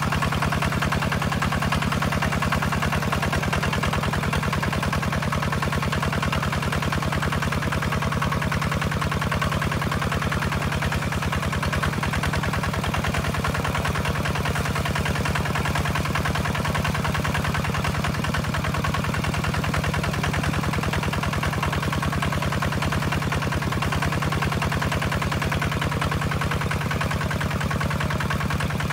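Two-wheel walking tractor's single-cylinder diesel engine running steadily with an even, rapid beat as it ploughs through a wet rice paddy.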